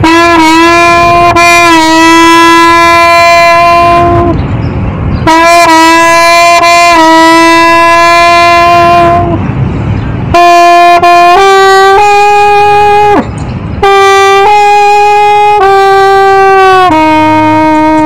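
A wind instrument playing a slow melody in long held notes of several seconds each. Near the end the pitch steps up and down from note to note.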